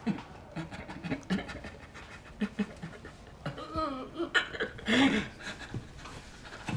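A wounded man panting in short, ragged breaths, breaking into strained, pained vocal sounds a little past halfway.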